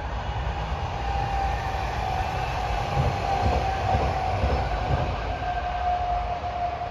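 Electric multiple-unit passenger train passing on the line, its wheels rumbling on the rails, with a steady whine that slowly drops in pitch as it goes by; loudest about midway.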